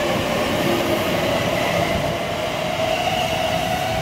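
TfL Rail Class 345 electric train pulling away, its traction motors giving a steady whine that rises slowly in pitch as it gathers speed, over wheel and rail rumble.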